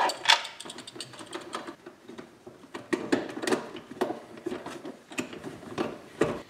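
Irregular clicks and knocks from a hand tool and the plastic centre-console trim as a stubborn, too-short bolt is worked into place by hand. The louder knocks come about three seconds in and again about five seconds in.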